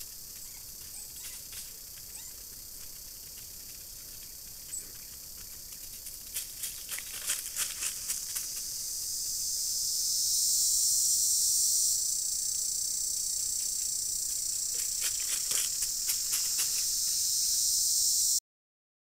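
Forest insects calling in a steady high-pitched chorus that swells louder around the middle, with bursts of rapid clicking strokes; it cuts off abruptly near the end.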